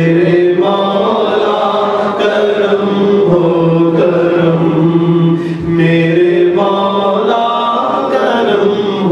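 A man chanting an Urdu devotional kalaam (naat) into a microphone without instruments, his voice drawn out in long ornamented phrases over a steady low drone. The voice breaks off briefly about halfway through and comes back with a new phrase.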